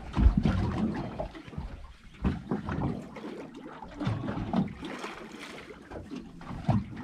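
Water lapping and sloshing against a boat's hull, with wind buffeting the microphone and a few low bumps, the loudest about a quarter second in.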